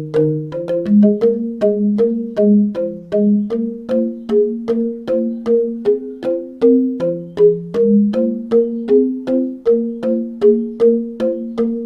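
Instrumental background music: a keyboard melody of evenly spaced struck notes, about three a second, over held low notes.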